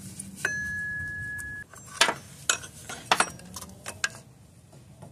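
Metal tools and parts clinking, a string of separate sharp clinks; near the start a steady high whine lasts about a second.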